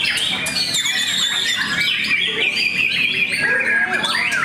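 White-rumped shama singing continuously: a fast, varied run of whistled notes that glide up and down, with hardly a pause.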